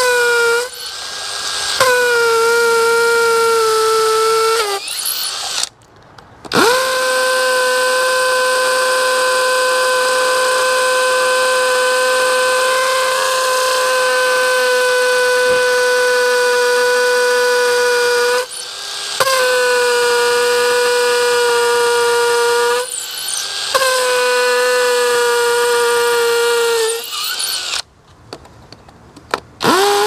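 Cordless drill boring holes into brick: a steady motor whine in several runs of a few seconds each, one lasting about twelve seconds, with short breaks between and the pitch sagging slightly as some runs end. The bit is worn out.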